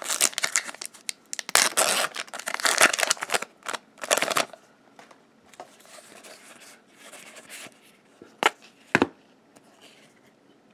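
Magic: The Gathering Return to Ravnica booster pack wrapper being torn open, with several seconds of loud crinkling and tearing. This is followed by softer rustling as the card stack is handled, and two short sharp clicks near the end.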